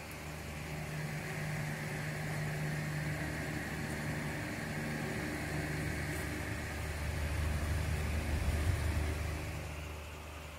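An engine running steadily, its hum growing louder through most of the stretch and fading again near the end.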